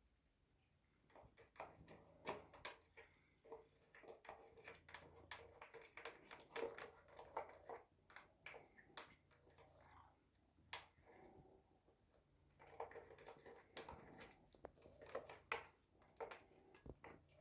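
Faint, irregular light clicks and taps from cats pawing after sausage pieces.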